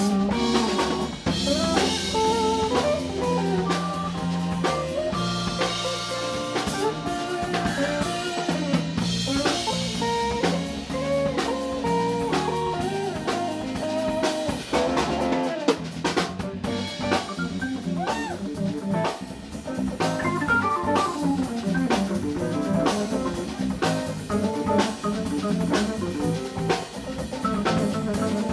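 Live instrumental band playing: Hammond B-3 organ, guitar, bass and drum kit together, with a steady drum beat under sustained organ chords and bending lead notes.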